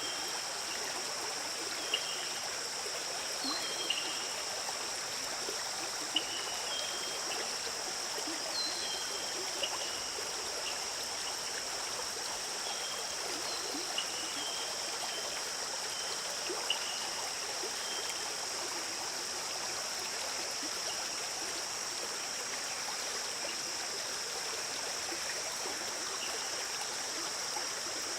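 A forest stream flowing steadily over stones. Over it run a steady high-pitched drone and short high chirps now and then through the first two-thirds.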